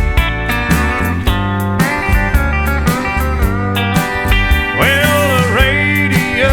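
Country music playing: slide guitar lines gliding in pitch over a steady beat.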